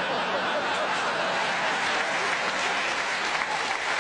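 Studio audience applauding: a steady, dense clatter of many hands.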